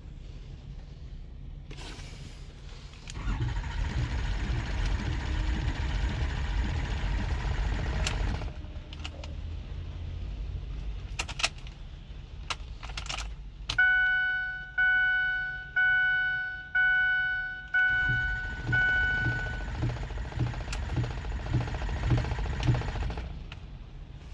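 2008 Ford F-250's 6.4 L Power Stroke turbo diesel being cranked by its starter, twice without staying running: a no-start that the mechanic puts down to a failing electric fuel pump (code P2291). The first cranking lasts about five seconds, the second comes near the end with an even, rhythmic pulse. Between the two, a dashboard warning chime rings five times, about once a second.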